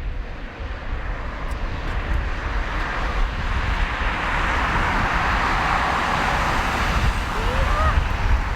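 Boeing 777F freighter's GE90 turbofan engines at takeoff thrust: a rushing jet noise with a low rumble beneath it, building over the first few seconds and then holding steady.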